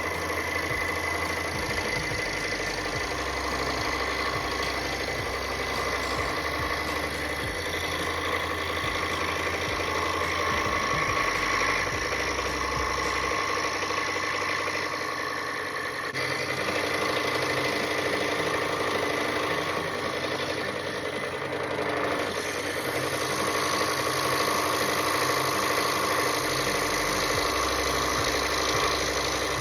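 Scroll saw running steadily, its reciprocating Flying Dutchman No. 5 Ultra Reverse blade cutting through wood.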